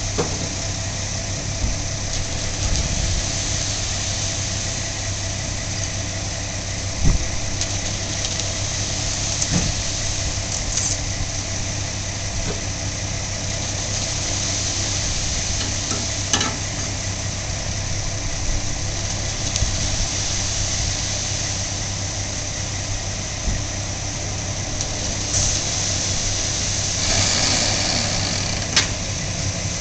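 Diesel engine idling steadily, with a few brief knocks over the top.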